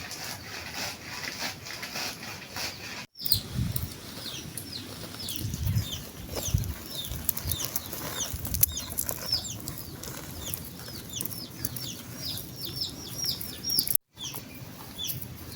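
Rustling and shuffling of roasted groundnuts being rubbed to loosen their red skins, with birds chirping in many quick, falling chirps throughout. The sound cuts out abruptly twice.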